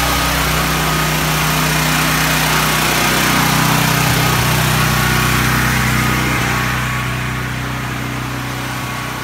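DuraMax 12000 portable generator engine running steadily, with an even hum, growing quieter in the last few seconds.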